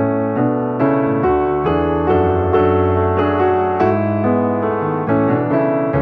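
Background piano music: a calm melody of single notes played at an unhurried pace over low held notes.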